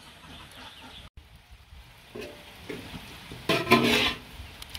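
Hands working chicken intestines in a water-filled metal basin, with wet handling and splashing noise. About three and a half seconds in comes a loud, harsh call from poultry lasting under a second.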